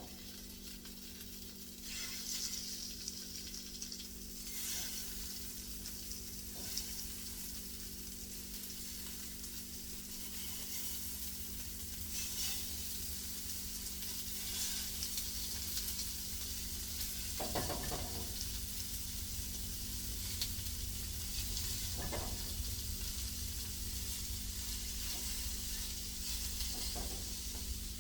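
Seasoned shrimp in olive oil sizzling steadily on a hot stovetop grill, with a few short knocks as it is moved about.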